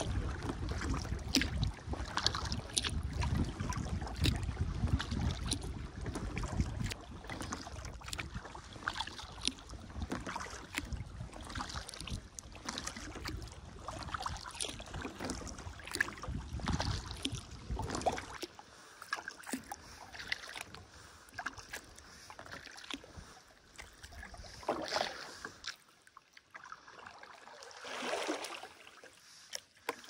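Kayak paddling: the paddle blades dipping, splashing and dripping water in irregular strokes. A low rumble underneath drops away about two-thirds of the way through, leaving quieter swishing strokes near the end.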